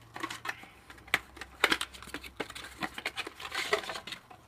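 Handling noise from a cordless track saw and its 18V slide-on batteries: a string of irregular sharp plastic clicks and knocks with short bits of rustling.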